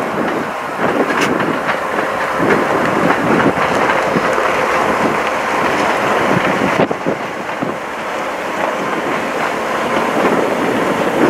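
Canadian Pacific diesel-hauled passenger train passing close by. The locomotive goes by first, then the passenger cars roll past with their wheels clattering on the rails in a steady, continuous rumble.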